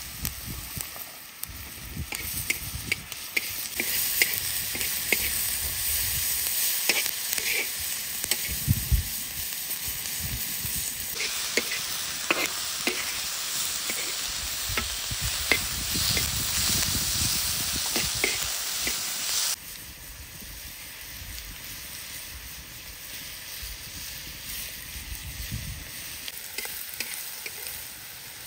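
Diced lamb heart, liver and chopped bell peppers sizzling on a hot steel saj griddle, with a metal slotted spoon clicking and scraping on the steel as they are stirred. The sizzle grows louder and brighter for a stretch in the middle.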